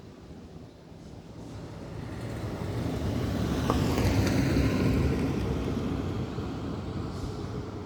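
A vehicle passing by: a low rumble that swells for about four seconds, peaks around the middle, then fades.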